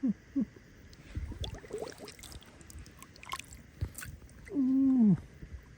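Wet squishing and sloshing of water being handled, with small clicks. Near the end comes one short falling vocal sound.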